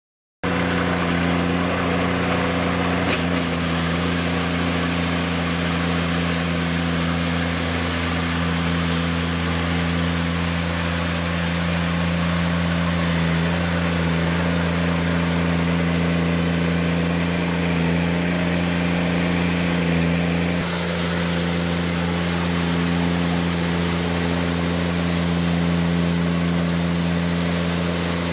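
A Polaris Brutus utility vehicle's diesel engine runs at a steady speed, driving a PTO rotary snow broom. The spinning broom brushes over the pavement with a steady hiss.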